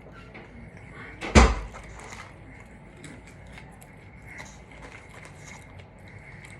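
A single loud thump about a second and a half in, with faint small clicks and ticks around it.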